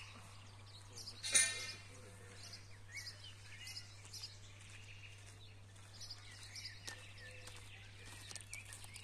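Birds chirping and calling outdoors, many short high chirps throughout, with one louder brief sharp call about a second in, over a low steady hum.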